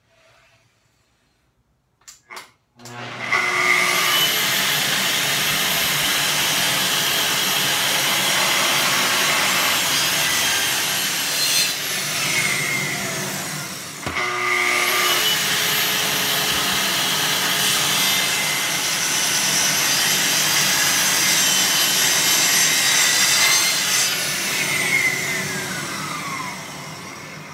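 Festool TS55 plunge tracksaw cutting a rebate along the edge of a thick solid cherry benchtop, with its dust extractor running. It starts about three seconds in and cuts steadily for about nine seconds, winds down with a falling whine, then starts again for a second cut of about ten seconds and winds down again near the end.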